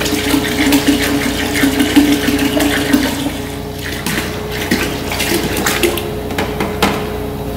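Coolant concentrate and distilled water pouring from plastic gallon jugs into a plastic bucket, splashing steadily, being mixed 50-50. The pour eases off about three and a half seconds in, then resumes unevenly with a few knocks of the jug.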